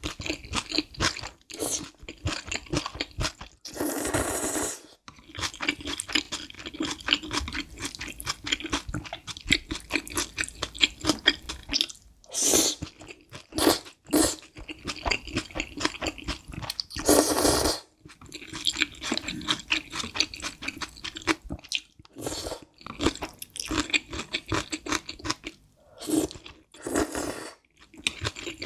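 Close-miked mouth sounds of eating spicy instant noodles: wet chewing with dense sticky clicks, broken several times by short, louder slurps as noodles are drawn into the mouth.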